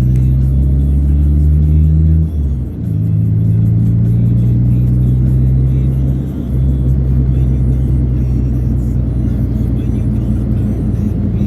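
Bass-heavy music playing over a car stereo while driving, with the car's road and engine noise underneath. The deep held bass notes change about two seconds in and again halfway through.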